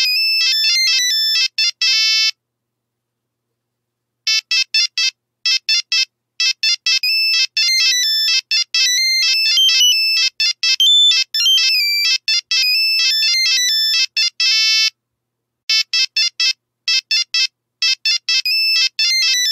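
Nokia mobile phone ringtone: a fast electronic melody of high beeping notes. It stops for about two seconds near the start, then plays on, with a short break near the end.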